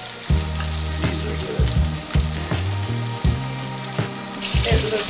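Pork belly and vegetables sizzling on a tabletop grill pan, with a few short clicks. The sizzle grows louder and brighter near the end.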